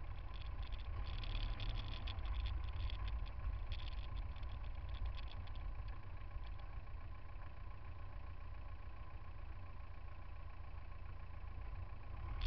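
Low rumble of car engines idling in crawling traffic, picked up by a camera on a car's front bumper. A run of light crackling clicks in the first half thins out after about six seconds.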